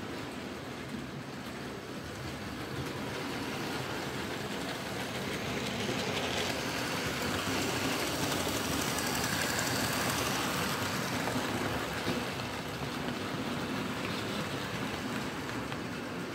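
Model trains running on the layout: a steady whirr of motors and wheels on the track, growing louder to about ten seconds in as the coaches pass close, then easing.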